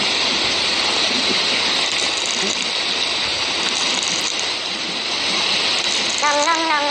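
Steady rushing, water-like background noise in a Roblox game's ambience, with a brief wavering voice-like tone near the end.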